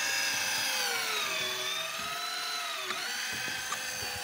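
Daiwa Tanacom 1000 electric fishing reel's motor whining as it winds line in, its pitch sagging and rising as it runs.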